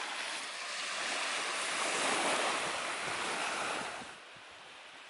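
Lake Superior surf washing onto a sandy beach, a steady rushing noise with some wind; it drops quieter about four seconds in.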